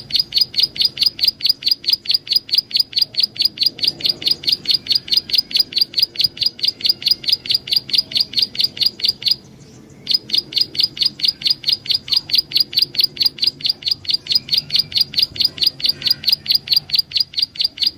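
Prenjak alang-alang bird singing: a fast, even series of high chirps, about five a second, broken once by a half-second pause about nine seconds in.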